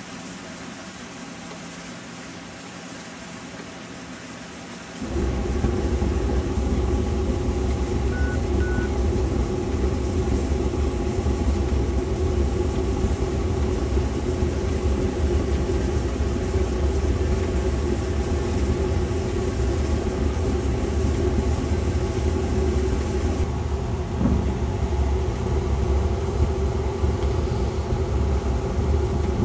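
A machine starts up about five seconds in and runs steadily with a low rumbling hum.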